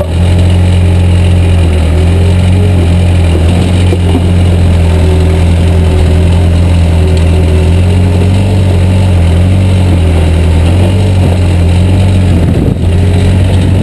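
Backhoe's diesel engine running loud and steady, its pitch wavering slightly as it works under load while the backhoe digs out tree roots.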